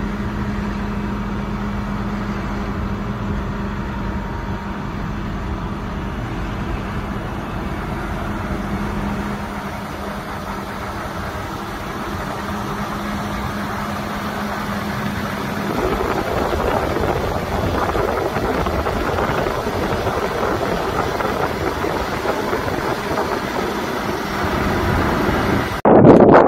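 Case IH Magnum 315 tractor's diesel engine idling with a steady low hum. About two-thirds of the way through, the hum gives way to a rougher, noisier wash, and a louder sound cuts in abruptly just before the end.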